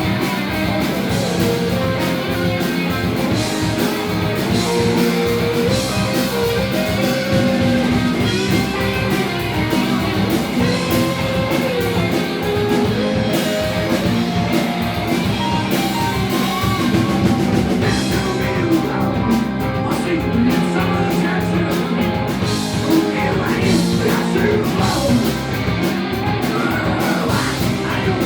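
A rock band playing a song live, with a lead singer over guitar and drums.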